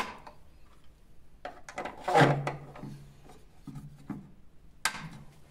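Small plastic lever pins being pushed and twisted onto a Geberit concealed cistern's flush mechanism: plastic rubbing and scraping, loudest about two seconds in, with a sharp click at the start and another about five seconds in.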